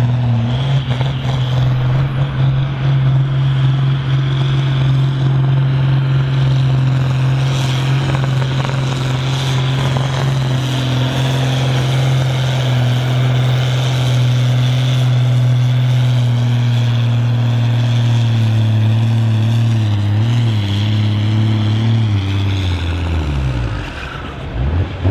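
Ford 8700 tractor's turbocharged six-cylinder diesel running loud and flat out at a steady pitch while hauling a pulling sledge, then sagging in pitch and bogging down over the last few seconds as the sledge brings it to a stop.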